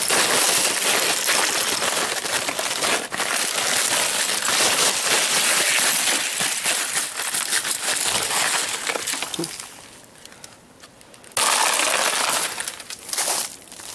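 An ice-glazed tarp being knocked and handled, its ice crust crackling and clinking like breaking glass in a dense run of sharp clicks. It quiets briefly about ten seconds in, then crackles loudly again near the end.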